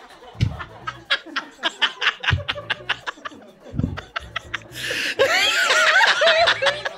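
People laughing hard: short, breathy, stuttering bursts for most of it, then louder high-pitched laughter about five seconds in.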